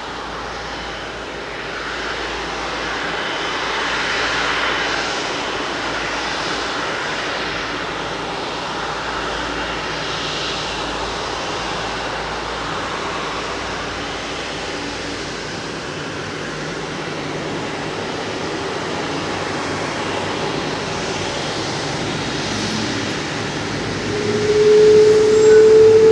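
Boeing 777-200ER's Rolls-Royce Trent 892 turbofans running at taxi power as the jet rolls by: a steady jet rush with a faint whine, swelling and easing slightly. Near the end a loud, steady tone, rising slightly in pitch, comes in over it.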